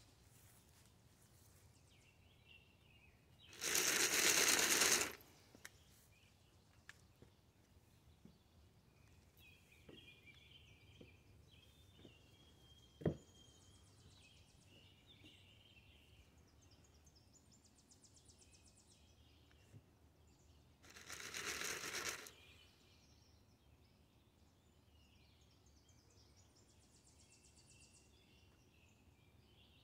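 Dried corn kernels shaken in a plastic container: two rattling shakes of about a second and a half each, the second some seventeen seconds after the first, the signal that calls tame deer out of the woods to feed. Faint birdsong between them, and one sharp click about thirteen seconds in.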